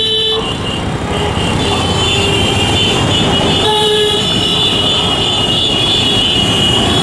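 Jet airliner engines with a steady high whine over a loud rush of noise, the whine growing stronger about two seconds in. Brief lower tones sound at the start and again a little before halfway.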